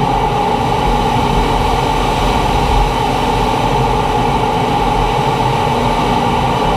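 T-45 Goshawk jet trainer in low-level flight: steady jet engine and airflow noise, a loud even hiss with a strong mid-pitched hum that does not change.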